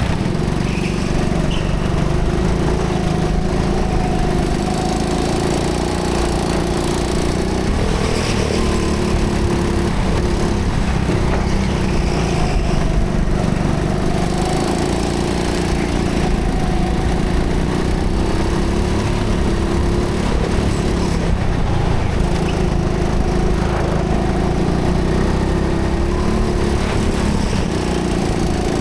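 Rental go-kart engine running under load, heard from the driver's seat, its pitch rising and falling again and again as the kart accelerates out of corners and lifts for the next.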